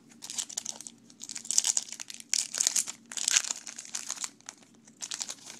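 Foil wrapper of a baseball card pack crinkling as it is taken from the box, handled and torn open, in a run of crackling bursts that is busiest in the middle and pauses briefly near the end.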